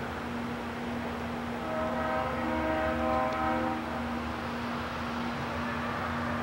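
Distant diesel locomotive horn sounding one chord-like blast of about two seconds, starting a little under two seconds in, over the steady low rumble of a passenger train moving off.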